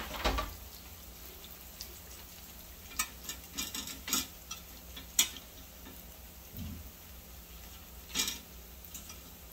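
Tortilla wedges frying in shallow oil in a skillet, a steady light sizzle. Metal tongs click against a wire cooling rack several times, the sharpest click about five seconds in and another near the end.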